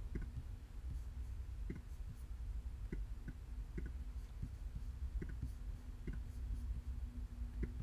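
Scattered short clicks from a computer's pointer being clicked while selecting and dragging a file, about eight at uneven intervals, over a steady low hum.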